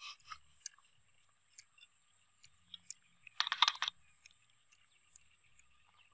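Eating cooked crab: scattered small clicks and crunches of crab shell being cracked and chewed, with a short burst of crunching about three and a half seconds in.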